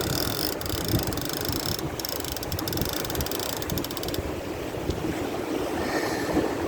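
Fishing reel being cranked, a fast clicking whir that stops sharply about four seconds in, over steady wind buffeting the microphone.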